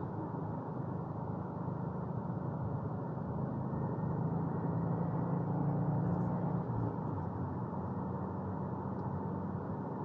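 A 2022 Subaru WRX's turbocharged 2.4-litre flat-four running under way, heard from inside the cabin over steady road and tyre noise. The engine note swells about four seconds in and drops back just before seven seconds.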